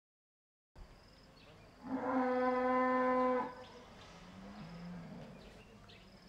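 Cattle lowing: one long, loud moo about two seconds in, followed by fainter, lower moos. Faint insect chirps run underneath.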